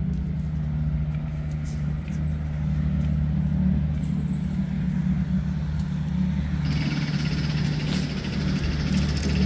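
Motor vehicle engine idling close by, a steady low hum; a steady hiss joins it about two-thirds of the way through.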